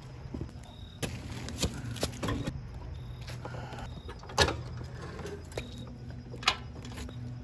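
Sharp knocks and clunks from a heavy touring motorcycle being walked and handled by its rider, over a steady low hum; the loudest knock comes about four seconds in, another near the end.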